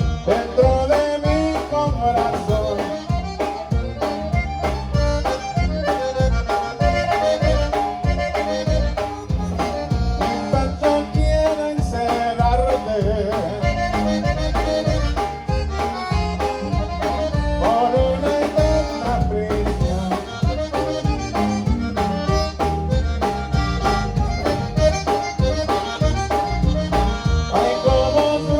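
Live conjunto band playing an instrumental passage: accordion carrying the melody over a steady bass and drum beat.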